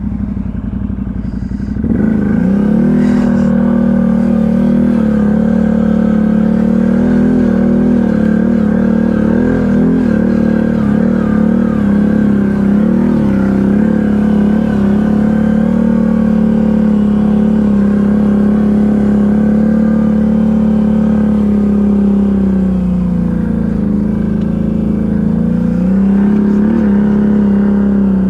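ATV engine running at steady high revs. It picks up about two seconds in, eases off a little over twenty seconds in, then climbs back up.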